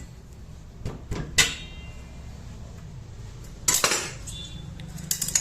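Sharp metallic clinks and clanks, one ringing briefly, as the old centre-stand return spring of a Suzuki Access 125 scooter is worked off with tools: three quick clinks about a second in, a louder clatter near four seconds, and a few light clicks near the end.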